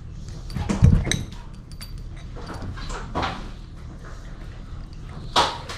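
Rustling and light metallic clinks of a braided steel dishwasher water line and its metal fitting being handled and screwed together by hand, with a louder thump about a second in.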